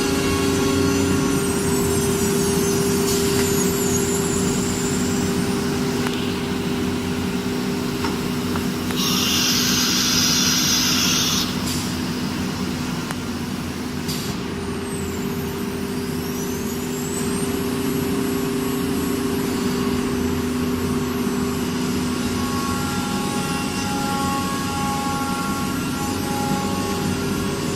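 CNC router with an automatic tool changer running with a steady machine hum. A few seconds in, its spindle whine falls away. About nine seconds in, a two-second hiss of compressed air sounds, typical of the tool changer releasing and swapping the tool, and then the spindle whine rises again as it spins back up.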